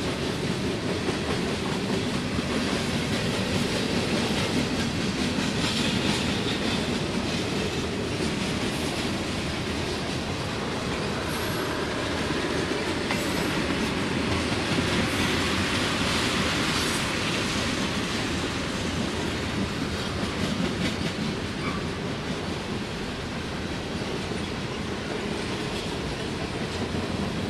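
Freight cars of a long mixed freight train rolling steadily past close by, their wheels clicking over the rail joints over a continuous rumble.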